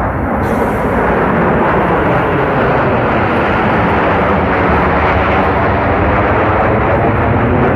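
Military aircraft flying low overhead in a parade flypast: a loud, steady engine roar that cuts off abruptly at the end.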